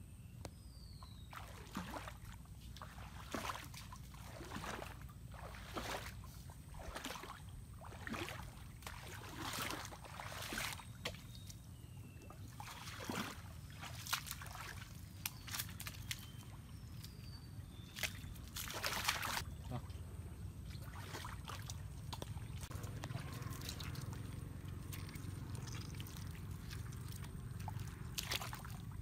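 Wet mud squelching and water sloshing as hands dig and bare feet step in a mangrove mudflat while hunting crabs, heard as irregular short splashes and clicks over a low steady rumble. A few faint bird chirps.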